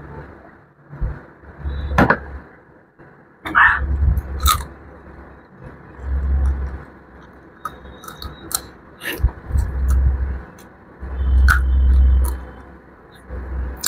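A man chewing and biting pieces of fried chicken close to the microphone, with sharp clicks and crunches and dull low thumps coming in bouts every second or two.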